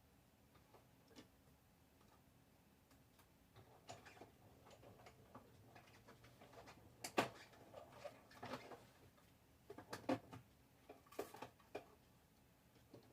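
Quiet room tone broken by scattered light clicks and knocks, the sharpest about seven seconds in.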